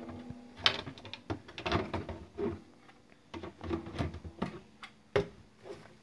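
Snake tongs and a white plastic bucket's lid clicking and knocking as a snake is lowered into the bucket and the lid is pressed shut: a series of irregular clicks and knocks.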